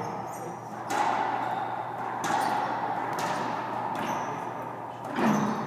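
Racquetball rally: the ball cracks off racquets and the court walls several times, and each hit rings on in a long hall-like echo.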